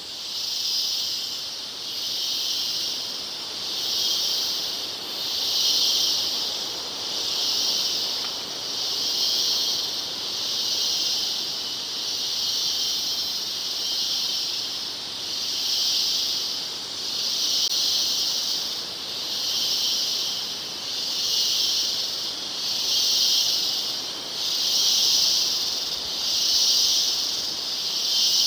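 Insect chorus: a high, hissing buzz that pulses steadily about once a second.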